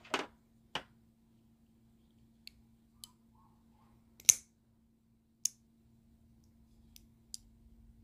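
Scattered sharp metal clicks and taps from handling a Boker Kalashnikov automatic folding knife with a small screwdriver. One click about four seconds in is much louder than the rest.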